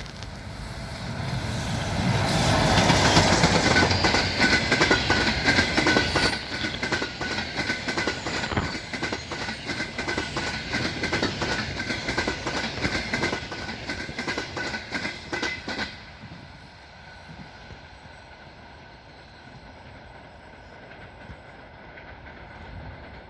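High-speed passenger train hauled by an EP20 electric locomotive passing at speed: the sound swells as it arrives, then a long run of ringing clickety-clack from the wheels over the rail joints. The clatter stops suddenly about sixteen seconds in as the last car goes by, leaving only a faint rumble.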